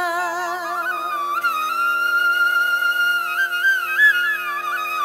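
Instrumental music: a flute plays a slow melody of long held notes that slide between pitches, over a steady low drone.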